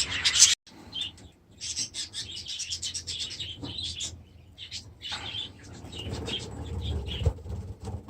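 A flock of budgerigars chirping and chattering, many short high calls overlapping. The sound drops out for a moment about half a second in, then the chatter comes back in scattered runs.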